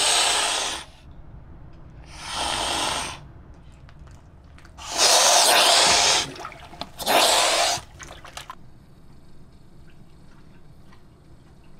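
Water splashing at a boat's side as young mute swans dart at food held out by hand: four short bursts of splashing, each about a second long, with quieter water noise between.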